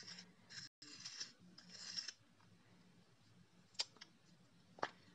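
Faint scratchy rustling of wooden coloured pencils being handled on paper for about two seconds, then two sharp clicks about a second apart as a pencil is picked up and tapped down.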